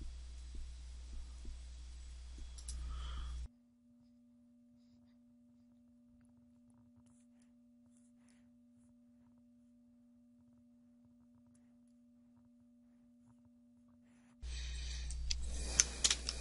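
Faint computer mouse clicks over a steady low hum. A few seconds in, the sound drops to near silence for about ten seconds, leaving only a faint steady tone. The hum returns near the end.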